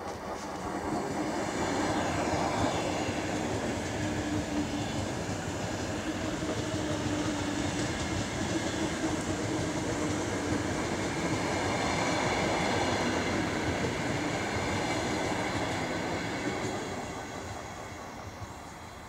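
Ten-car ER9M electric multiple unit passing close by: wheel-on-rail running noise with a steady tone under it. It swells over the first two seconds and fades in the last two as the train draws away.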